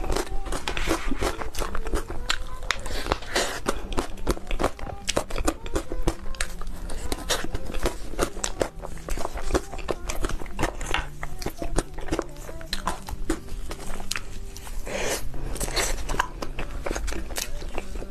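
Close-miked eating of chocolate crepe cake: biting and chewing, heard as a dense, irregular run of small mouth clicks.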